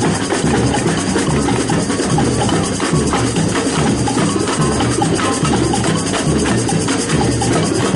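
Samba music with a dense, steady percussion rhythm.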